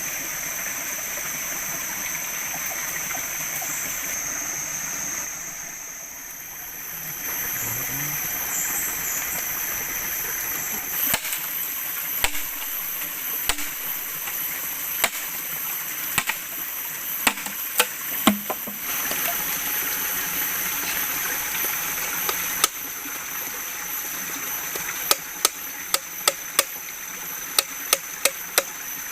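Steady rush of water with a constant high-pitched tone over it. From about eleven seconds in come scattered sharp knocks, which quicken near the end into a fast run of chopping strikes.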